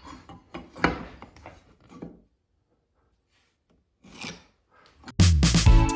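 Pieces of wood knocking and rubbing together in a few short handling sounds, then a pause; background music comes in near the end.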